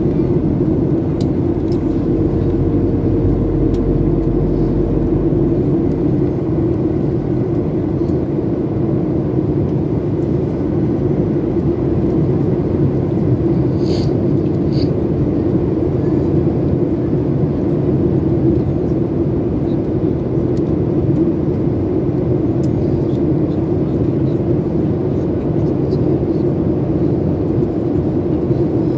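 Steady cabin noise of a Ryanair Boeing 737 on descent, heard from a window seat beside the wing engine: the even rumble and hiss of the jet engines and airflow. Two short faint clicks come about halfway through.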